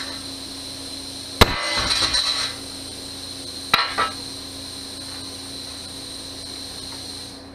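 A hammer strikes half-inch steel plate twice, about a second and a half in and again near four seconds, each clang followed by a short ringing rattle. A steady machine hum runs underneath and stops near the end.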